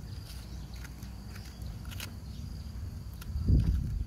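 Small snaps and ticks of a bitter melon being broken apart by hand, over a faint steady insect trill and a low rumble. A louder low thump comes about three and a half seconds in.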